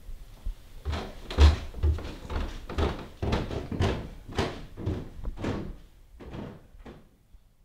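A fist knocking on a door: a steady run of about a dozen knocks, roughly two a second, loudest early on and growing fainter near the end.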